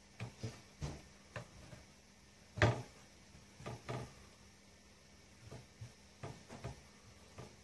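Irregular soft taps and knocks of hands working thin squares of dough on a wooden board, with one louder knock about two and a half seconds in.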